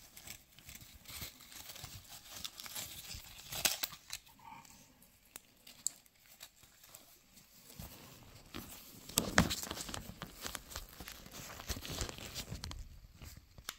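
Rustling and crinkling as gloved hands pull a watch out of a drawstring cloth pouch, with scattered small clicks and a louder rustle about nine seconds in.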